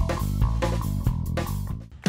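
Background music with plucked guitar over a bass line, dropping in level near the end.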